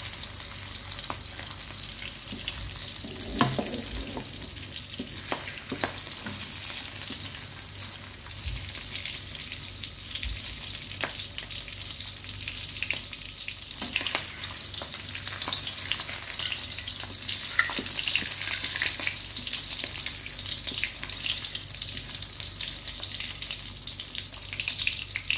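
Labang fish fat sizzling steadily as it renders into its own oil in an aluminium wok, with a few sharp taps of a wooden spatula against the pan.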